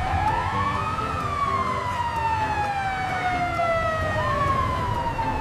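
Ambulance-style wailing siren: a tone that rises for about a second, then falls slowly over several seconds, rising again about four seconds in.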